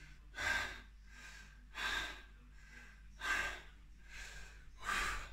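A man breathing hard during a set of dumbbell shoulder presses: four loud, forceful breaths about one every second and a half, with fainter breaths between them.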